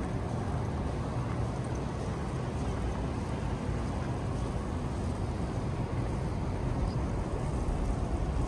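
Steady low rumble of busy city street ambience, with no distinct events standing out.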